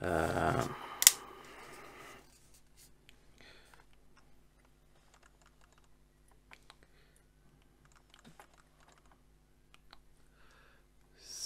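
Clicks and taps from handling a camera and lens: one sharp, loud click about a second in, then a scattering of faint clicks and taps.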